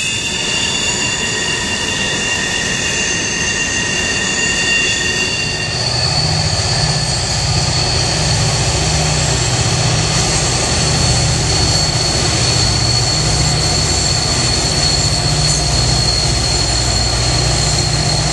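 Freight train passing, its cars rolling by with steady high-pitched wheel squeal. About six seconds in, Norfolk Southern diesel locomotives come by and their engines add a low drone under the continuing squeal.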